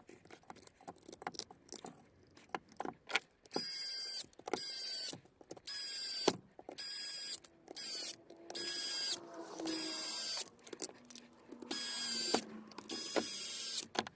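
Bosch GDX18VEC cordless impact driver's brushless motor spinning up in about nine short trigger pulls, each a high whine lasting under a second, with no hammering. Before that come a few seconds of scattered clicks and handling noises. The tool is being test-run after its forward/reverse slider was replaced.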